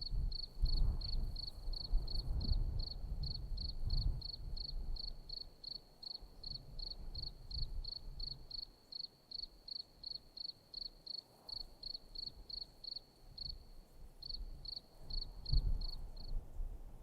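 A cricket chirping steadily, about three short chirps a second at one high pitch, stopping near the end. Low rumbles sit underneath, strongest in the first few seconds and again near the end.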